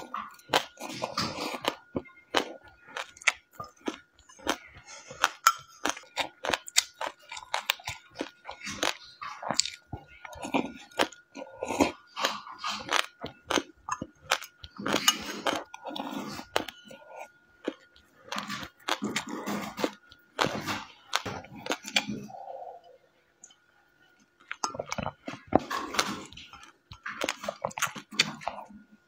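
Close-up chewing and crunching of a mixed-seed mixture, with many sharp clicks of a spoon against a glass mug. The chewing pauses briefly about three-quarters of the way through, and a faint steady whine runs underneath.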